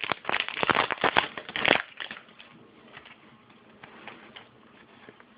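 A trading-card pack wrapper crinkling and tearing as it is ripped open, for about two seconds. Faint rustling follows as the cards are handled.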